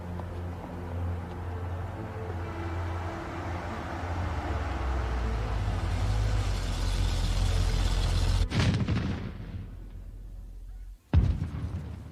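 Low rumbling drone of dramatic film score, with held tones over it, swelling in loudness and breaking off abruptly about eight and a half seconds in. About eleven seconds in comes a single loud bang.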